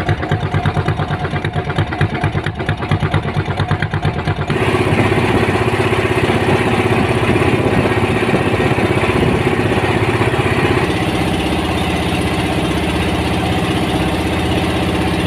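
A wooden fishing boat's inboard engine running steadily with a rapid pulsing beat. About four and a half seconds in, the sound jumps louder and more hissy, then runs on evenly.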